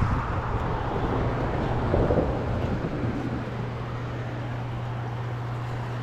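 A steady low engine hum runs over a constant wash of outdoor noise, with a slightly louder rustle about two seconds in.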